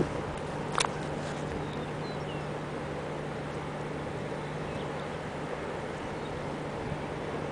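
Steady outdoor rushing noise of wind and wide moving flood water, with a low steady hum under it. One sharp click comes about a second in, and there are a few faint bird chirps.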